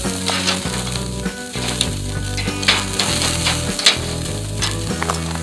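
Skirt steak sizzling on a hot charcoal grill grate, with a steady hiss broken by many sharp pops and clicks.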